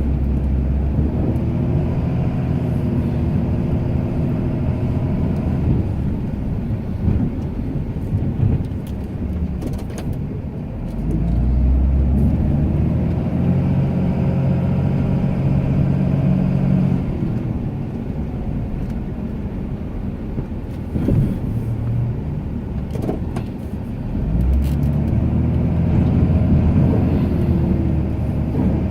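Ram 2500 pickup's engine working under load while plowing snow, its pitch rising and falling as the truck speeds up and slows. It is louder and deeper for two stretches, near the middle and near the end.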